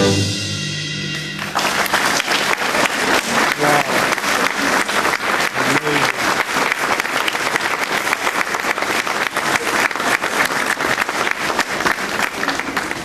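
A concert band's final held chord dies away, and about a second and a half in an audience starts clapping, a steady round of applause.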